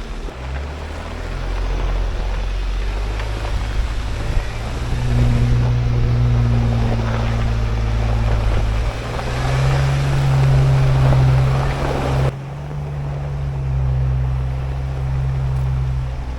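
Jeep engine running under load over rough dirt road, with a steady rush of road and wind noise. The engine note steps up about five seconds in and again near ten seconds, and the rushing noise drops away abruptly about twelve seconds in.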